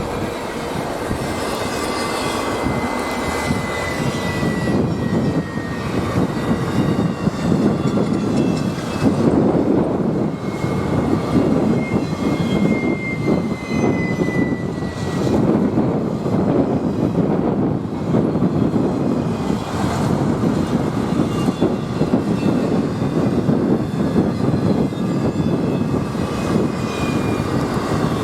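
Freight train cars rolling past, a steady loud rumble with faint high wheel squeals that glide slightly downward.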